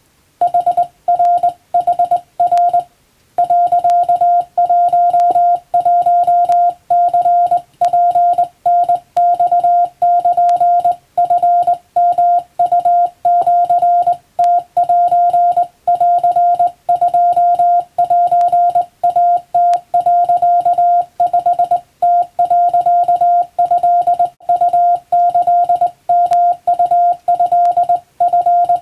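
Hand-keyed Japanese (wabun) Morse code: a single steady mid-pitched beep switched on and off in dots and dashes, with a brief pause about three seconds in.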